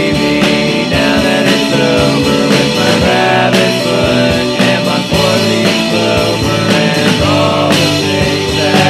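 Outro rock music with guitar, drums and singing.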